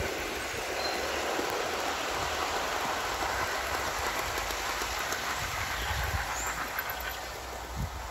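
O gauge model train, a Class 37 diesel model hauling loaded MGR coal hopper wagons, rolling along garden track: a steady rattling rumble of wheels on the rails, with faint clicks around the middle.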